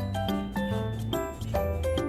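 Background music: a light, bouncy tune with short plucked notes over a steady bass beat.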